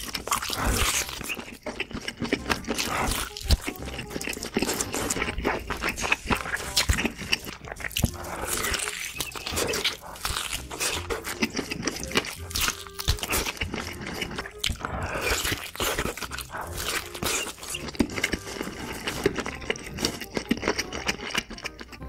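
Close-miked chewing of a large bite of thick sausage: wet smacking mouth sounds with dense, irregular clicks and squelches.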